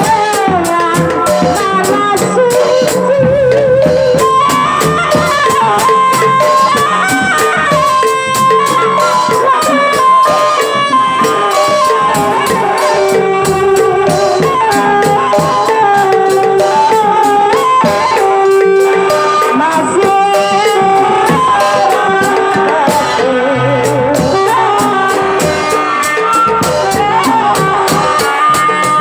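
Loud music: a wavering, ornamented melody over fast, steady percussion.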